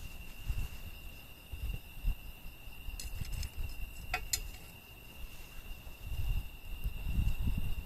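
A cricket trilling in one steady high tone, over a low rumble of wind on the microphone. A few sharp crackles from the burning firewood come about three and four seconds in.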